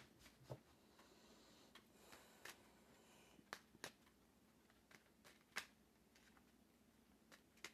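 Near silence with a few faint, scattered clicks and taps of tarot cards being handled.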